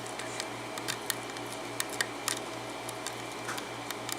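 Faint, irregular metallic clicks and ticks of a hook pick lifting the pins inside an Abus 72/40 six-pin padlock held under a tension wrench, as the pins are set one by one. A steady low hum runs underneath.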